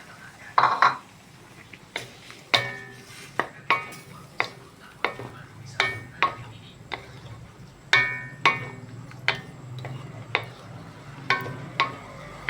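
Metal utensil knocking and scraping against a metal cooking pot while stirring, in irregular strikes about two a second, each with a short metallic ring; the loudest clatter comes about half a second in.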